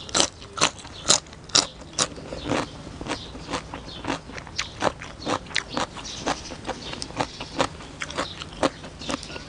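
Close-up, loud crunching and chewing of crisp raw vegetables: a run of sharp, irregular crunches at about two a second, loudest in the first two seconds.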